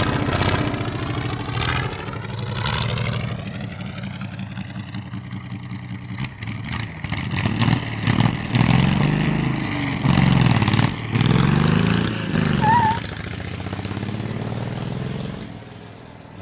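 Race car engine revving hard, its pitch rising and falling over and over as it accelerates and shifts, with short breaks between revs; the sound fades near the end.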